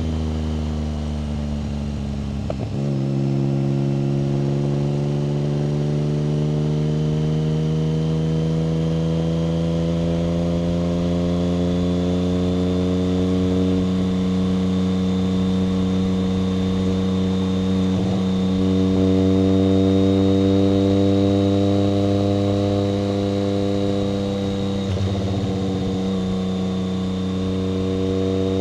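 1990 BMW K75's three-cylinder engine running under way, its note climbing slowly as the bike gathers speed. Brief breaks in the note near the start, a little past halfway and near the end, the first followed by a drop in pitch like an upshift; a thin high whine runs above it.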